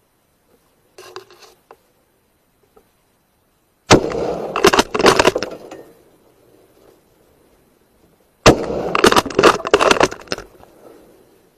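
Two rifle shots about four and a half seconds apart, each a sudden loud crack followed by about two seconds of jumbled noise.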